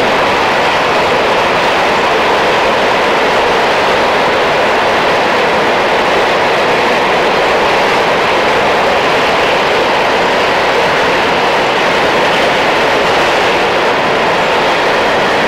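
Freight train of bogie grain hopper wagons rolling past: a steady noise of wheels running on rail.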